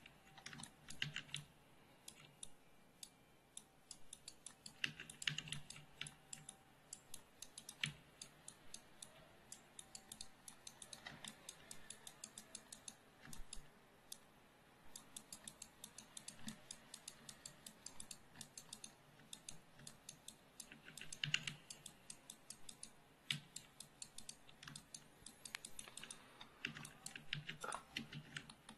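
Faint clicking of a computer keyboard and mouse, in irregular quick runs with short pauses.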